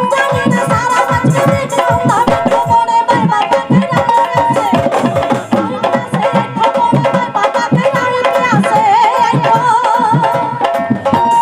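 Live Punjabi folk instrumental interlude: dholak drums play a quick, busy beat under a held melody from keyboard and plucked strings. A wavering melodic line comes in near the end.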